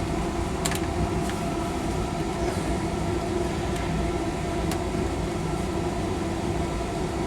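Steady mechanical hum of running machinery with a few constant tones, and a few light clicks and taps a few seconds apart.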